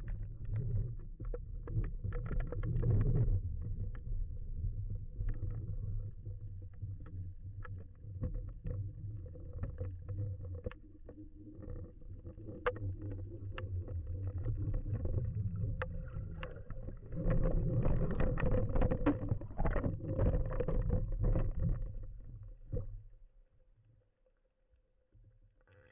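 Underwater noise picked up through a camera housing on a speargun: a low rumble with scattered sharp clicks, louder for a few seconds near the end and then falling away suddenly.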